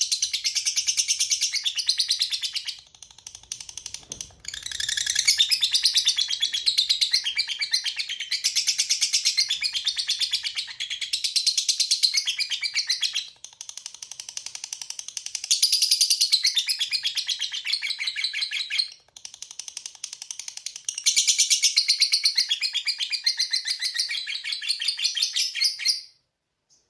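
Lovebird giving its long chattering trill ('ngekek panjang'): very rapid, high-pitched chatter in long bouts of several seconds each, broken by short pauses, stopping about a second before the end.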